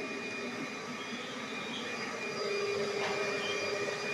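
Canister vacuum cleaner running steadily, its motor giving a whirring hiss with thin steady whines; a lower steady hum joins about two seconds in.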